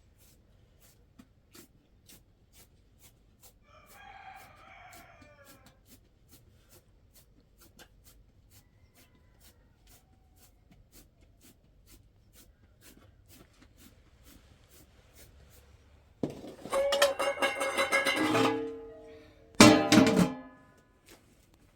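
Rooster crowing: one faint, distant crow about four seconds in, then a long loud crow near the end that drops in pitch as it finishes, followed by a shorter loud call.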